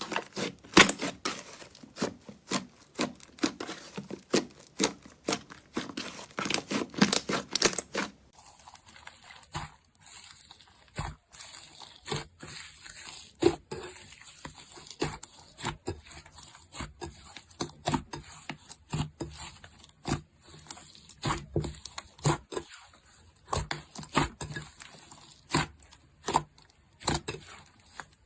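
Fluffy clay slime being squeezed, stretched and pressed by hand, giving strings of small pops, clicks and crackles. They come thick and fast for about the first eight seconds, then thin out into scattered pops.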